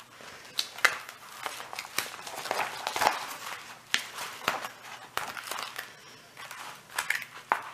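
A large diamond painting canvas and its protective cover paper crinkling and crackling as they are handled, in irregular sharp crackles.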